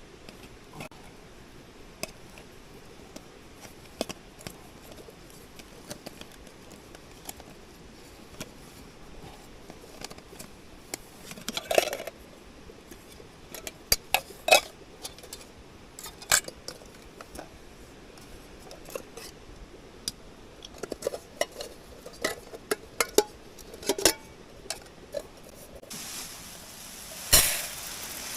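Irregular clinks and clatters of dishes, pots and utensils being handled, sparse at first and busier about midway. Near the end a steady rushing noise comes in.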